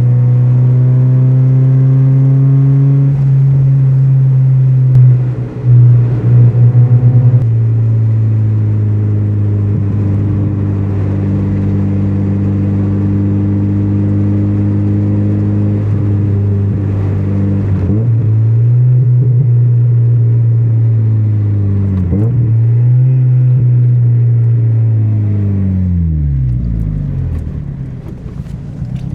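NA Mazda Miata's 1.6-litre four-cylinder engine under way, a steady drone at cruising revs with two brief dips in pitch as it changes gear. The revs fall away low near the end as the car slows, then pick up again. A short stretch of loud thuds comes about five seconds in.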